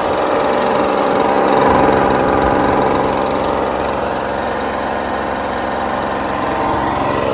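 Walk-behind gas lawn mower's small Briggs & Stratton engine running steadily at a constant speed.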